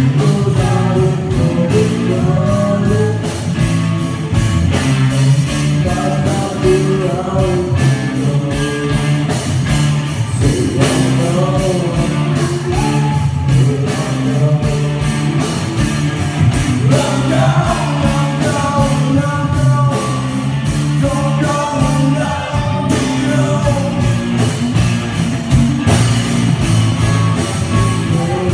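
Live rock band playing a heavy metal song: distorted electric guitar and bass over a steady drum-kit beat, with a voice singing over it at times.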